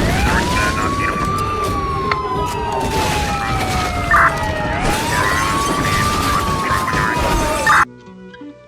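Police siren wailing through two cycles, each rising quickly and then sliding slowly down, over a loud noisy din with a couple of sharp bangs. It cuts off suddenly near the end, leaving quiet plucked-string music.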